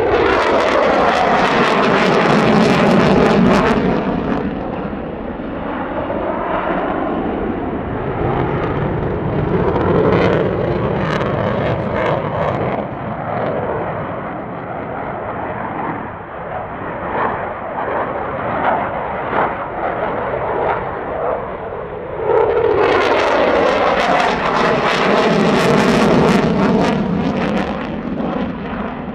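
Jet noise from an F-15 fighter's two turbofan engines passing in flight. It is loud at first and sweeps down in pitch, falls to a steady distant rumble, then surges loud again about three-quarters of the way through.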